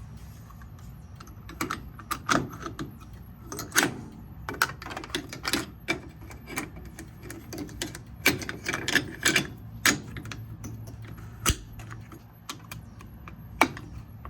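A run of irregular clicks, taps and knocks from objects being handled, a few of them sharper and louder, spread over most of the stretch.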